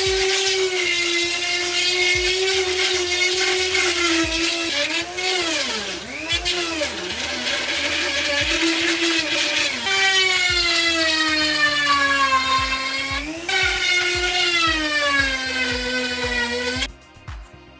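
Small pen-style rotary tool running with a high whine as its fine bit grinds a groove along a seam in chipboard. The pitch dips twice around the middle, drops about two-thirds of the way in, sinks slowly after that and cuts off suddenly just before the end.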